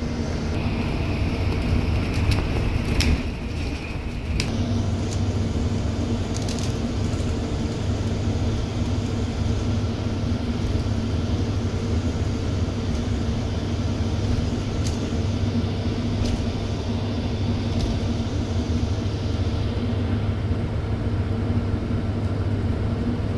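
Tour bus running steadily, heard from inside the cabin: a constant low engine hum with scattered clicks and rattles. There is a faint high whine in the first few seconds.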